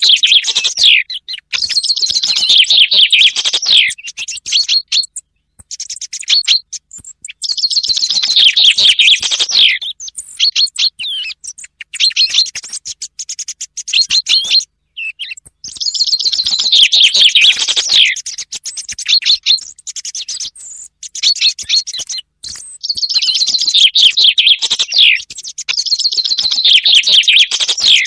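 Bird-lure recording of common chaffinch song: loud phrases of a rapid trill dropping in pitch, each a couple of seconds long, repeating every several seconds. Fainter song thrush notes are mixed in between the phrases.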